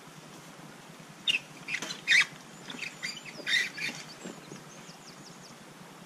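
A few short scuffs and rustles, about one to four seconds in, from someone clambering over a wire fence with a heavy load, with faint bird chirps behind.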